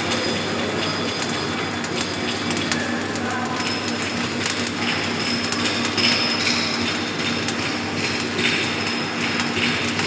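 Electric arc welding: the arc crackles steadily as the bead is run, over a steady low hum.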